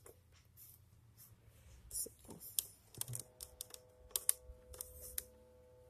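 Light plastic clicks and taps from fingers handling a GE clock radio cassette player's case, cassette door and piano-key buttons, coming thicker from about two seconds in. A faint steady tone joins about three seconds in.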